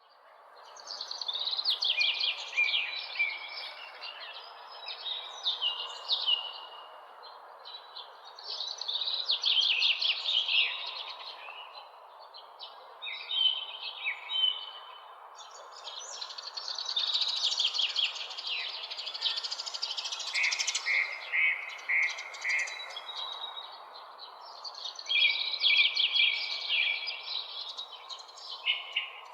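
Songbirds singing in a dawn chorus: bursts of quick chirping, trilled phrases over a steady background hiss. The sound fades in from silence at the start.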